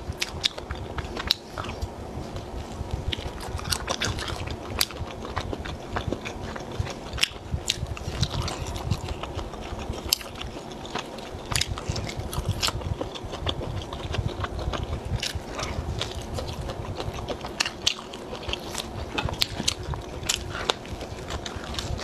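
Close-miked biting and chewing of crispy deep-fried skewered food, a breaded fried cutlet among it, with frequent sharp crunches.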